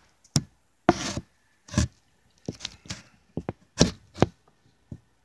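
Handling noise from a phone being set up to film: fingers knocking and rubbing on it, in a string of irregular bumps and short scrapes.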